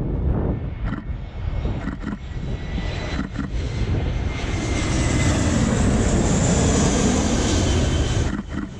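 Twin-engine jet airliner passing low on landing approach: the engine noise swells over several seconds, carrying a high whine that slowly falls in pitch, then drops away near the end. A DSLR shutter clicks several times, singly, along with it.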